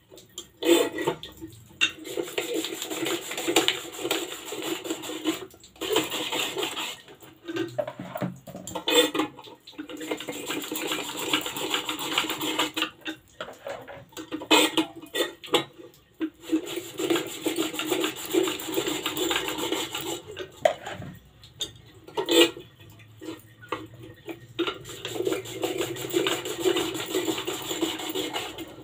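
Hand-operated potato chips slicer shaving raw potatoes into thin slices: rhythmic scraping and rasping in bouts of a few seconds, broken by short pauses, with a few sharp knocks.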